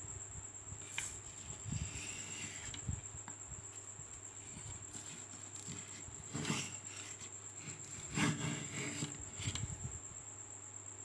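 Small home-made wooden hand plane worked on a wooden board: two short scraping strokes, the first about halfway through and the second a couple of seconds later, among light knocks and handling of the plane. A faint steady high-pitched whine runs underneath.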